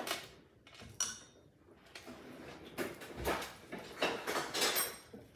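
Kitchen utensils knocking and scraping against a stainless steel mixing bowl. There are a couple of sharp clinks with a short metallic ring about a second apart, then a busier run of clinks and scrapes around three to five seconds in.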